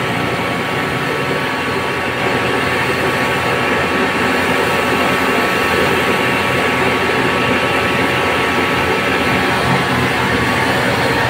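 Pressure washer running steadily, its high-pressure jet hissing as it blasts the concrete sidewalk, under a faint steady machine hum.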